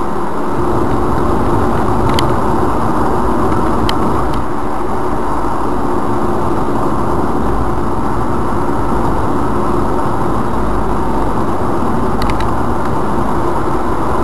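Road and engine noise inside a moving car, picked up by a budget dash cam's built-in microphone: a steady rumble with a few faint clicks.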